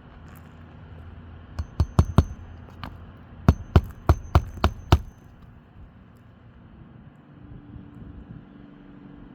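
Hammer driving roofing nails into a replacement asphalt shingle: a quick run of four strikes, then, after a short pause, six more evenly spaced strikes at about three a second.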